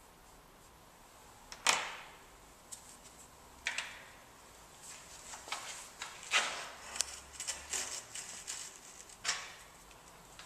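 Irregular sharp clicks and knocks of tools being handled: four louder ones a few seconds apart, with lighter ticks between them.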